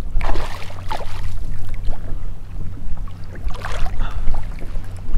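Water splashing and sloshing beside a kayak as a hooked flounder is drawn to a landing net: two short bouts, one just after the start and one a little before the end. Under them runs a steady low rumble of wind on the microphone.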